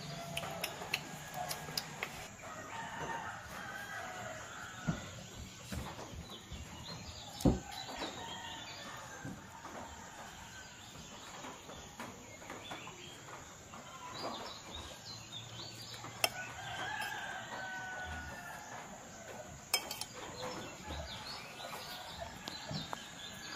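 Chickens calling in the background, a rooster crowing and hens clucking, with a few sharp knocks, the loudest about seven seconds in.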